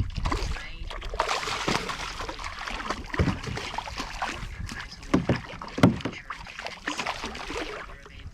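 Water splashing and sloshing around a kayak, with irregular knocks and thumps on the hull a few times.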